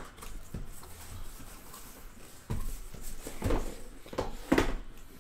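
A cardboard shipping case being slid up and lifted off a stack of shrink-wrapped trading-card boxes: scraping and rustling cardboard with several knocks, the loudest near the end.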